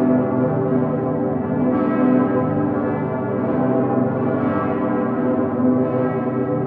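Full festive peal of Cologne Cathedral's bells, the great St. Peter's bell (Dicker Pitter) among them: many large swinging bells ringing over one another in a dense, continuous hum, with new strikes landing every second or so.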